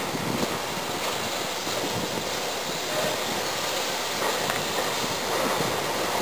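GWR Hall class steam locomotive 5972 Olton Hall approaching along the track, its running sound growing louder towards the end.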